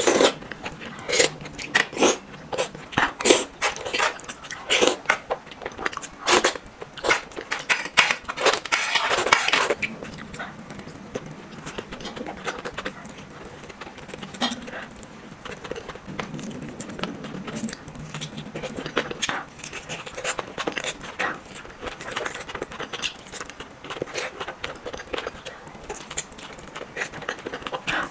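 Close-miked eating: utensils clicking against a plate or bowl, with biting and chewing. The sharp clicks come thick and loud for the first ten seconds or so, then turn softer and sparser.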